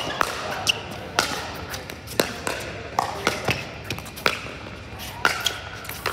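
Pickleball rally: a quick, uneven series of sharp pops as paddles strike the plastic ball and the ball bounces on the court, echoing in a large indoor hall.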